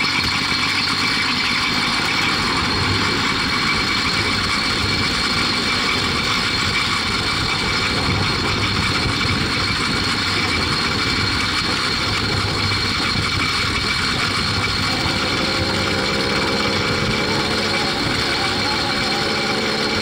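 80cc two-stroke motorized-bicycle engine running steadily while the bike is ridden. Its pitch creeps upward over the last few seconds as it gains speed.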